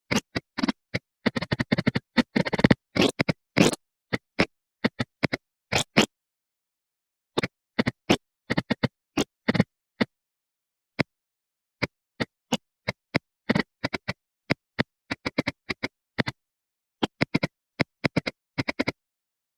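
Groceries and containers being handled and set down on fridge shelves: an irregular string of knocks, clicks and scrapes. They come thickest about one to four seconds in, then sparser, with silence between them.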